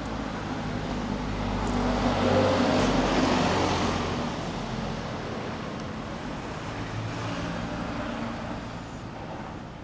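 Road traffic, with one vehicle's engine swelling and fading as it passes about two to four seconds in.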